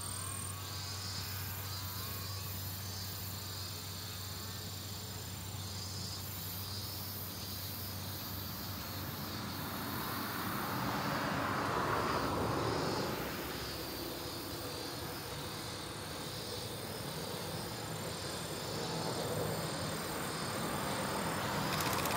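Insects chirping steadily in high trills. A broad swell of noise passes about halfway through, and near the end the sound of the approaching C58 steam locomotive and its train begins to rise.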